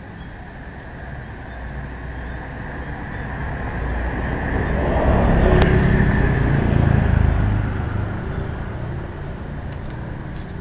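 Motor scooter passing close by: its engine grows louder, peaks about halfway through, then fades as it rides away.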